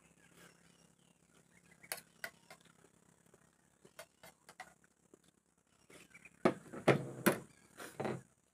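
Metal spoon clinking and scraping on a plate a few times. Near the end comes a cluster of louder knocks and rattles of dishes on the table.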